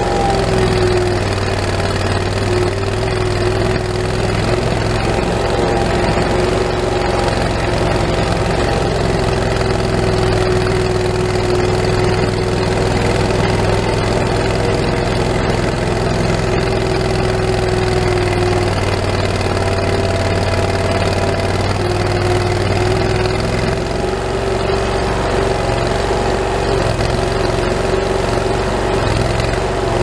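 Skid steer engine running steadily as the machine drives, heard from inside the open cab.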